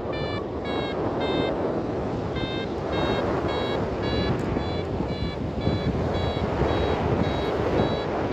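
Flight variometer beeping about twice a second, its pitch shifting slightly from beep to beep with a short break about two seconds in: the climb tone of a glider in rising air. Steady wind rush on the microphone runs underneath.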